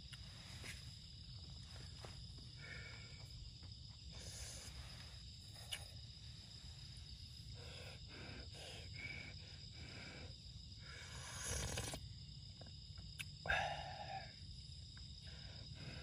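Faint outdoor ambience: a steady, thin, high insect chirring over a low rumble. Scattered small clicks and knocks break through it, with the loudest knock about halfway between 13 and 14 seconds in.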